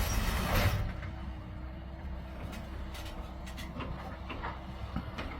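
Excavator digging into hard-packed ground: its diesel engine runs with a steady low hum while scattered scrapes and knocks of rock come from the bucket. A loud rush of noise fills the first second.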